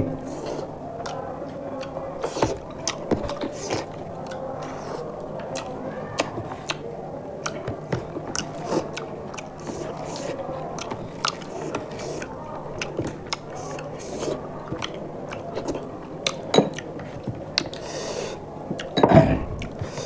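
Close-miked eating sounds: wet chewing, lip smacks and sticky clicks of two people eating rice and fish curry by hand. A brief, louder rush of noise comes about a second before the end.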